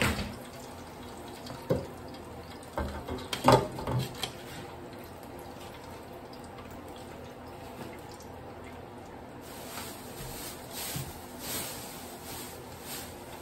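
Hot oil sizzling steadily in a deep fryer as a wire fry basket of catfish nuggets drains above it. Several metal clanks from handling the basket in the first four seconds, the loudest about three and a half seconds in.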